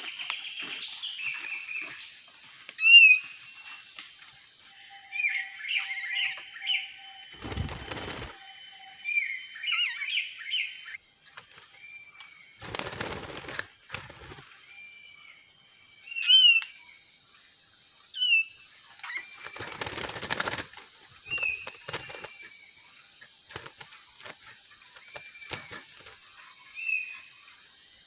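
Kapas tembak birds calling with short sharp chirps and chattering phrases every second or two. Three times there is a burst of wing flapping and rustling, from a bird fluttering at the decoy cage.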